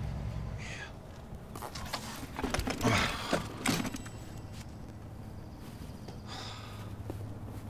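A car engine fading away, then a cluster of sharp knocks and clicks about two to four seconds in as a cyclist sits down on the curb and handles his road bike.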